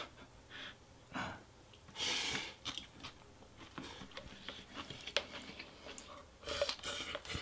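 A person eating pho noodles: a loud slurp about two seconds in, then chewing with small wet mouth clicks, and another slurp near the end.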